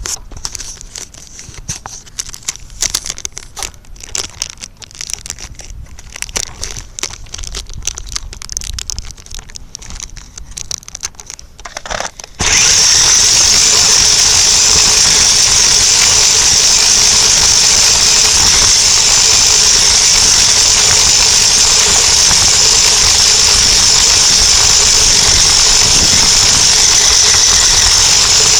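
Battery-powered RC toy truck's electric motor and gears, heard through a camera taped to the truck. Scattered clicks and rustles come first, then about twelve seconds in the motor switches on abruptly and runs with a loud, steady whine.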